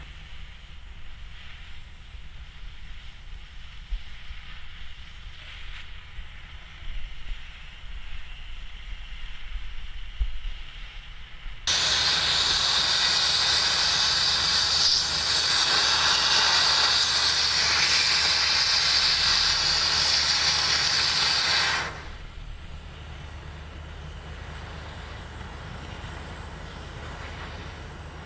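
Oxy-fuel cutting torch hissing as its cutting jet burns through 20 mm steel plate. Just before halfway the hiss turns much louder and harsher for about ten seconds, starting and stopping abruptly, then drops back to a quieter hiss.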